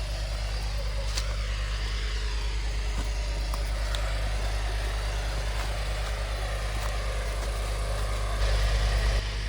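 A combustion engine running steadily at idle, a low, evenly pulsing hum that briefly grows louder near the end.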